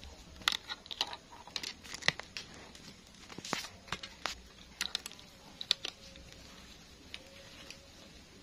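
Handling noise: irregular sharp clicks, taps and short crinkling rustles for the first six seconds or so, then only a faint steady background.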